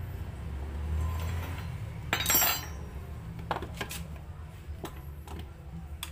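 Metal tools clinking and tapping against a foot pump's fittings as a part inside is pushed backward: a short loud scrape about two seconds in, then several sharp clicks.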